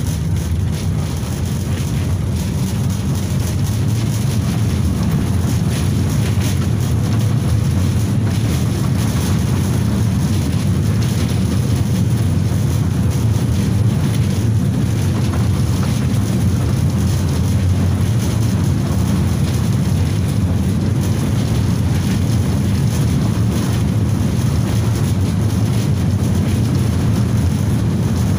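Interior running noise of a 1992 KTM-5M3 (71-605) tram car under way: a steady low rumble of wheels on rails and the DK-259 traction motors, growing a little louder over the first few seconds and then holding.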